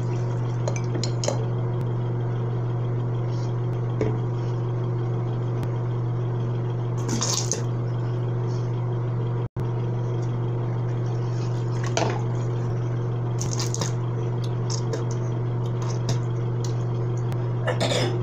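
Toothbrushing at a bathroom sink: scattered clinks and splashes of water over a steady low hum.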